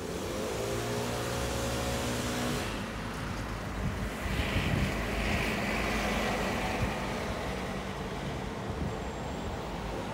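Double-decker bus driving past: a steady engine drone for the first few seconds, then a louder rush of engine and tyre noise as it goes by, with a brief hiss about halfway through.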